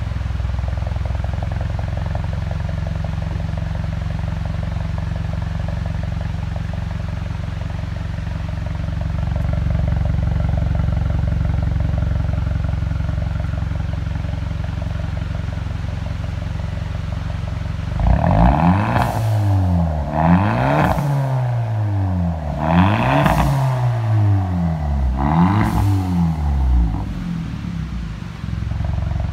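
Hyundai Elantra Sport's turbocharged 1.6-litre four-cylinder heard at the tailpipes through a muffler delete on the stock cat-back mid section: idling steadily, then revved four times in quick succession about two-thirds of the way in, each rev rising and falling in pitch, before settling back to idle.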